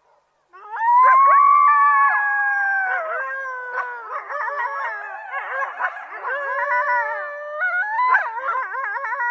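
A group of coyotes howling together, starting about half a second in with long, gliding howls that break into quick, wavering yips and quavers from several voices at once.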